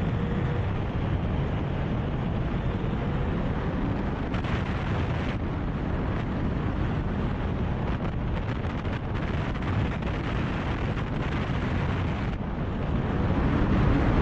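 Steady wind rushing over a hood-mounted camera as a car drives fast, with its engine and tyres muffled underneath. It grows louder near the end as the car speeds up.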